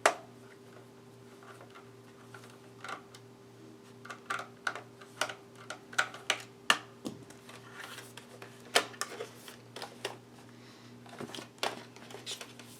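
Irregular light plastic clicks and taps of hands working on a Dell Latitude E6510 laptop's casing and parts during reassembly, coming a few at a time, with the loudest click about nine seconds in.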